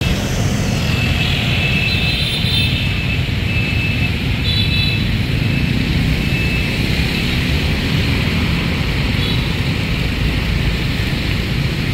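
Motorbike street traffic: a steady, loud rumble of small engines running and passing.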